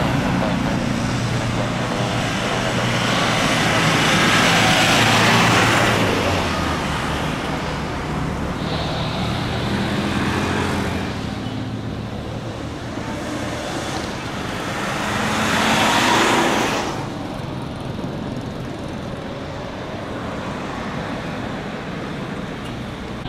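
Rolls-Royce Trent 7000 jet engines of an Airbus A330neo at takeoff thrust, a loud rumble and hiss through the takeoff roll, liftoff and climb-out. The sound swells twice and drops off sharply about seventeen seconds in as the jet climbs away.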